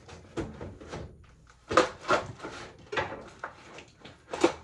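A small cardboard parts box being opened and handled: a string of sharp knocks and rustles, the loudest about two seconds in and near the end.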